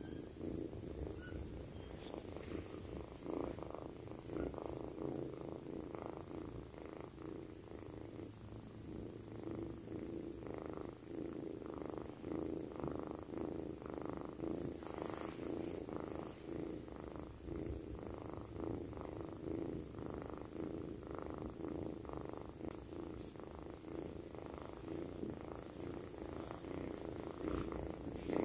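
Young orange tabby kitten purring steadily while asleep. The purr swells and eases with each breath, about once a second.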